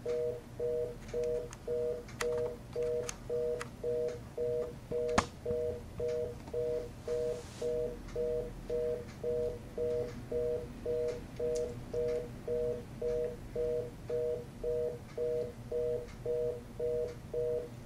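Telephone fast-busy (reorder) tone heard from a payphone handset: a paired tone pulsing on and off about twice a second, the network's signal that the call cannot go through after the not-in-service intercept. Faint scattered clicks, with one sharp click about five seconds in.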